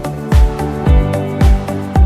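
Background music with a steady deep beat, about two beats a second, over held chords.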